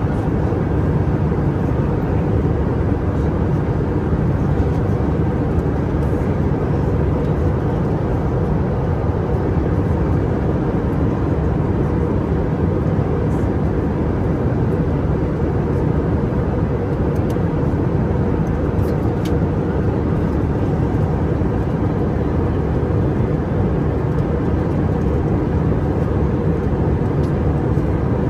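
Steady cabin noise of an Airbus A319 airliner in flight: an even rumble of engine and airflow that holds unchanged throughout.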